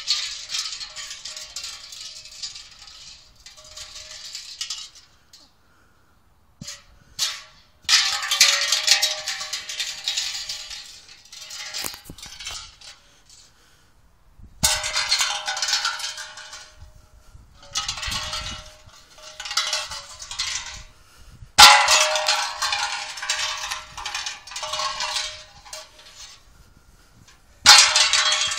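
A metal beer keg landing on grass again and again, each landing a sudden clang that rings on with a steady tone and rattles as it fades over a few seconds. About five landings.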